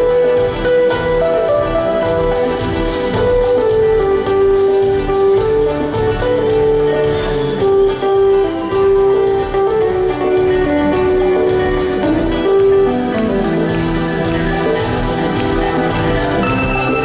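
Rock band playing live: an instrumental passage with a moving melodic lead line over a steady drum beat, without singing.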